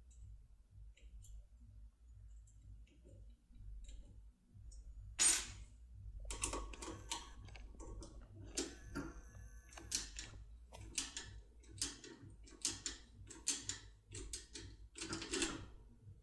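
Small metallic clicks of a turbo decoder working inside a JUWEL 3+3 safe lock as its wheel is turned under tension. Nearly quiet at first, then a sharp click about five seconds in, followed by a run of clicks roughly one a second.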